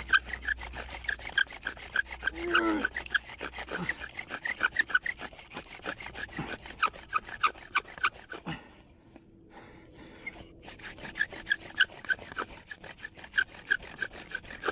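Bow drill at work: the wooden spindle squeaking and grinding in the hearth board with each fast stroke of the bow, several squeaks a second. The strokes stop for about a second and a half, about eight and a half seconds in, then start again.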